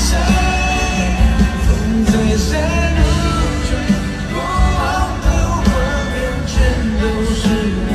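Live pop concert music: a singer's voice carrying a melody over a full band with bass and drums.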